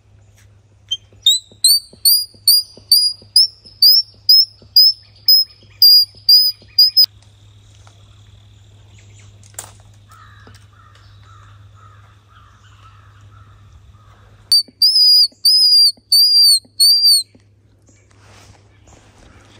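Squirrel call used by a hunter, giving a run of sharp, high chirps, each rising and falling in pitch, about three a second for six seconds. After a pause of several seconds come five longer, slower chirps. This is the kind of call used to draw squirrels in.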